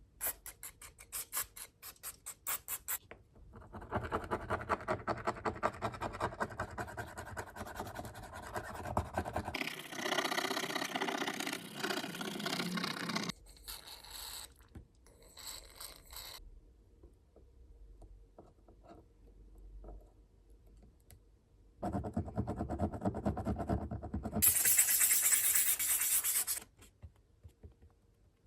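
Repair tools scraping and scratching on the parts of an opened iPad mini, in long runs of quick strokes, with a string of sharp clicks at the start and quieter pauses between the runs.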